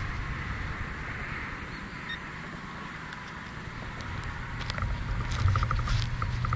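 Low, uneven rumble on a body-worn camera's microphone, growing louder in the second half, with a few clicks. A quick run of about six short high beeps sounds about five seconds in.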